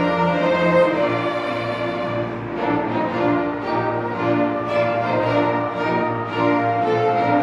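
Acoustic hymn performance: gentle ensemble music with sustained, held notes over a steady low bass line.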